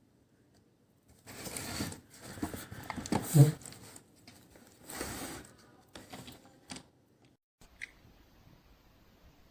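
Plastic toy playset pieces being handled: a few seconds of rustling and clattering with one louder knock about three and a half seconds in, then a few light clicks.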